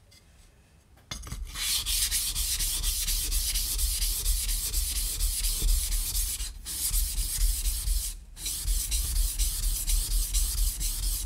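Steel kitchen knife blade being stroked back and forth on a whetstone, a rhythmic scraping that starts about a second in and breaks off twice briefly.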